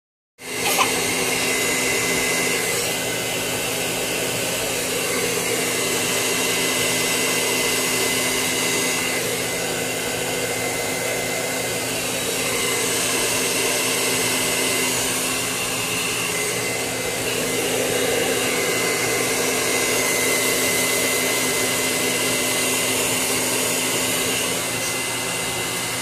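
Hair dryer running steadily on its cool setting: a constant rush of air with a steady motor hum.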